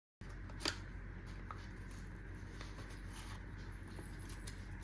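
Small clicks and rustles of an item and its packaging being handled, with one sharp click about half a second in, over a steady low electrical hum.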